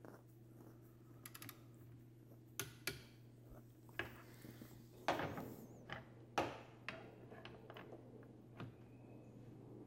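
Scattered light metallic clicks and taps from a torque wrench and socket being worked on the wiper motor assembly's mounting nuts, over a faint steady low hum.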